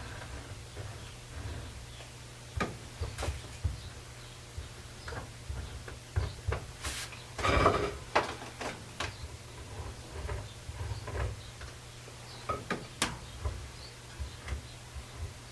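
Scattered light knocks and clicks of wooden chair parts being handled and set down during glue-up, with a louder cluster of clatter about halfway through. A steady low hum runs underneath.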